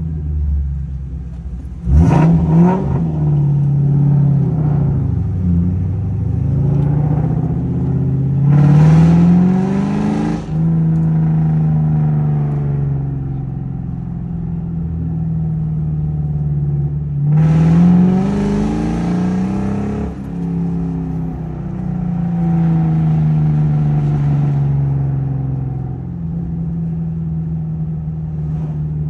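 2004 Ford Mustang GT's 4.6-litre V8, heard from inside the cabin, pulling away hard about two seconds in with its pitch climbing and dropping through the gears. It settles to a steady cruise, then makes a second hard pull about seventeen seconds in before cruising again.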